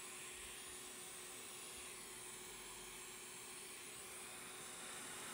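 Hot air rework station blowing a faint, steady hiss while it heats up to about 660 °F, with a faint steady hum underneath.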